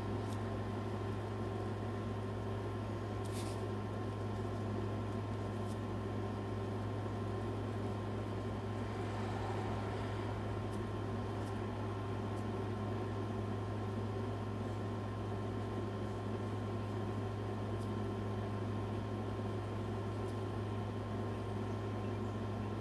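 Steady low electrical hum with an even hiss, from a running appliance or fan, with a few faint ticks scattered through it.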